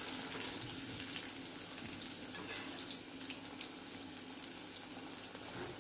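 Masala-coated potato pieces deep-frying in hot oil in a kadai: a steady sizzle with many tiny crackles.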